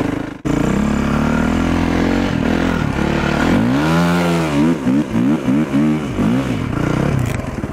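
Enduro snow bike's engine (a motorcycle on a track-and-ski kit) running under way. Its revs climb and drop again and again through the middle, about two or three times a second.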